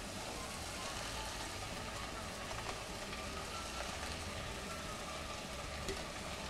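Steady soft sizzling hiss from a saucepan of potatoes cooking in a little oil and water on a gas burner, while chopped celery is slid in from a plate, with a couple of faint taps.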